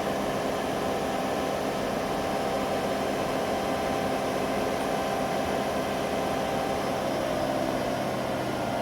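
Empty washing machine spinning at high speed, its drum and motor giving a steady whine. It is set to spin at 1600 rpm, but the owner suspects it is only reaching 1400 rpm.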